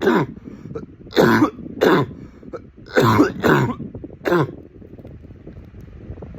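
A man's barking cough: about six hoarse, deep coughs in quick groups, stopping about four and a half seconds in.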